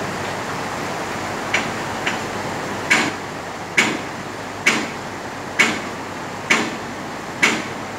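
Steady rushing of a fast river, with a series of sharp knocks on top: two single ones, then six at an even beat of about one a second.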